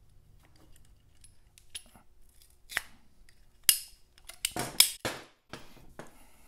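Ratcheting pipe cutter being squeezed through a braided rubber oil hose, giving a string of sharp clicks and snips that come closer together and louder in the second half as the blade cuts through.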